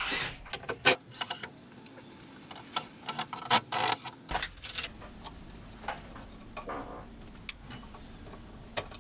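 Metal parts and hand tools clinking and knocking at irregular intervals as something is taken apart by hand, thick at first and thinning out after a few seconds.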